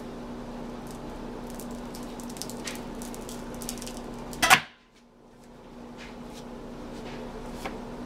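Light clicks and taps from handling a wire multi-bar soap cutter and soap log, with one sharp knock about four and a half seconds in, over a steady low hum. The hum dips right after the knock and slowly comes back.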